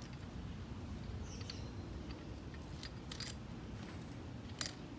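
Light metallic clicks and clinks of a nut and washers being fitted by hand to a car strut's top mount, a few separate ticks with the sharpest about four and a half seconds in, over a low steady background rumble.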